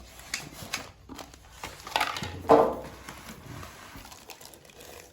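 Handling sounds while unboxing a mixer grinder: plastic packaging crinkling and jars and lids being knocked and set down, with scattered short knocks and the loudest one about two and a half seconds in.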